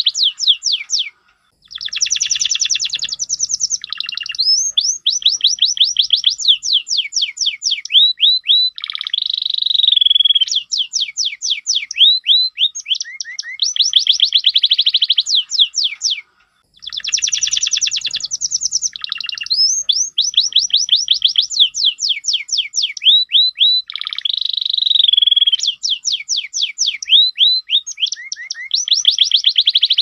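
Yellow domestic canary singing a long, continuous song of rapid trills and rolls, each a quick run of sweeping high notes, broken by short pauses about a second in and near the middle.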